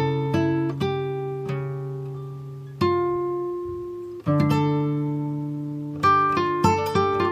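Background music of a plucked acoustic guitar: single notes and low bass notes ring out and fade slowly, spaced out at first and picking up into quicker notes near the end.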